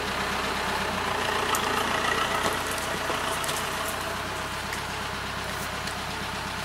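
Tractor engine running steadily as it pulls a trailer loaded with logs, getting a little louder about a second in, then settling.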